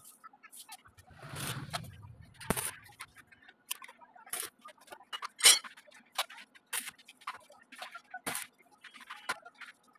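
Scattered light metal clinks and taps as steel grill bars and a tape measure are handled and set down on a concrete floor, with a rustling shuffle about a second in and the loudest, sharpest clink about five and a half seconds in.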